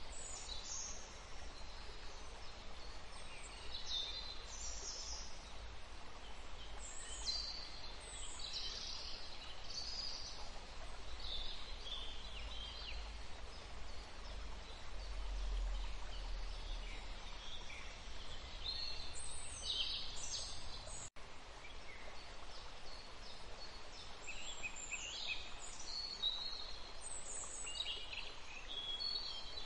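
Birdsong ambience: birds chirping and calling on and off over a steady soft hiss, with a brief dropout about two-thirds of the way through.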